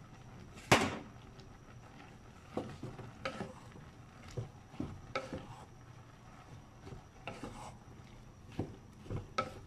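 Slotted wooden spatula stirring boiled mung beans in a nonstick cooking pot, with short scrapes and knocks against the pot, and one sharp knock about a second in.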